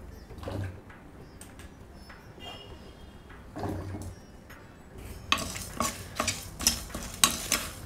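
A spatula stirring and scraping dry dals, raw rice and dried red chillies in a dry kadai as they are dry-roasted on medium heat. A quick run of scratchy strokes starts about five seconds in. Before that there are only two soft thumps.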